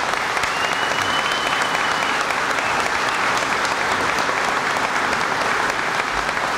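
A large crowd applauding loudly and steadily, a dense clatter of many hands clapping. A thin high steady tone rises over it for about a second and a half, starting about half a second in.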